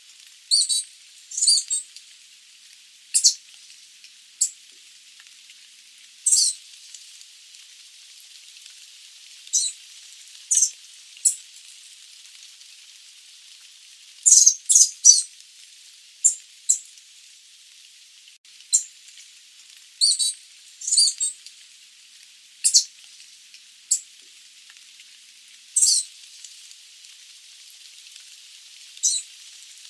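Sooty babbler giving short, sharp, high-pitched call notes at irregular intervals, some in quick clusters of two or three, over a steady hiss.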